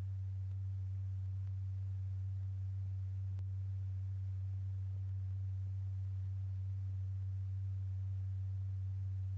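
Steady low pure tone, around 100 Hz, holding one pitch and level throughout. It is the driving tone that sets a stretched paper diaphragm vibrating for a cymatics experiment.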